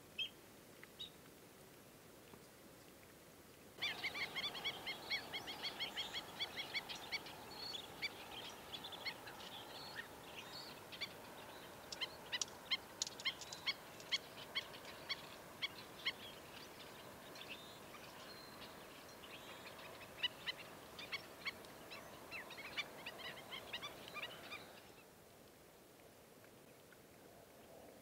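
A flock of black-necked stilts calling: many short, sharp calls in rapid, overlapping series, starting suddenly about four seconds in and stopping suddenly a few seconds before the end.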